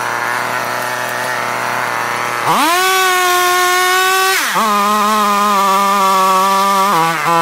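Petrol two-stroke chainsaw idling, then revved up sharply about two and a half seconds in and held at high speed. About four and a half seconds in its pitch drops to a lower, steady speed as it cuts into branches, and it shifts again near the end.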